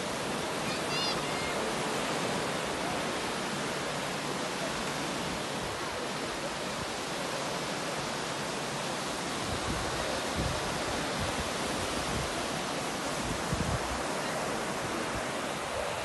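Small waves breaking and washing up on a sandy beach: a steady hiss of surf. From about halfway through, irregular low rumbles of wind buffet the microphone.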